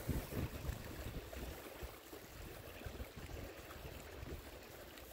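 Wind buffeting the microphone in uneven low gusts, strongest in the first second and then weaker, over a faint steady hiss.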